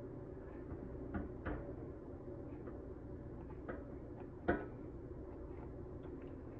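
Kitchen scissors snipping fat and skin off a raw chicken leg: a few short clicks of the blades, the sharpest about four and a half seconds in, over a steady low hum.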